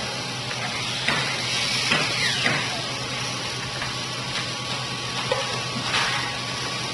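Factory-floor machinery noise, a steady hum and hiss, with a few sharp knocks and clatters and a short falling squeal about two seconds in.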